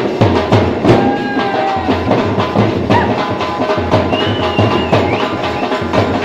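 Live dhol drums played by a wedding band, several drummers beating a fast, steady dance rhythm.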